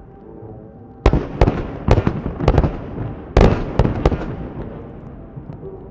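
Aerial fireworks bursting: after about a second, a rapid string of some eight sharp bangs over about three seconds, fading away near the end.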